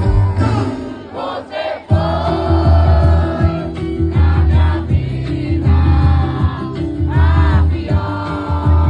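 Forró music played live, with sung vocals over a heavy, pulsing bass beat. The band drops back about a second in and comes crashing in again just before two seconds.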